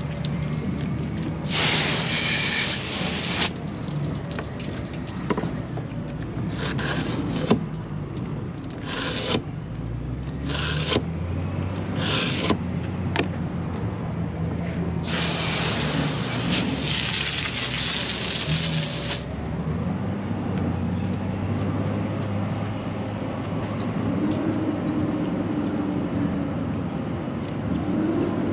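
Marina background noise: a steady low engine hum, broken by two bursts of hiss a few seconds long, one near the start and one past the middle, with short scraping sounds between them.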